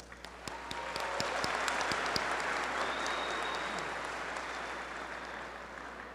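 Crowd applauding: a few separate claps at first, swelling into full applause about a second in, then slowly dying away.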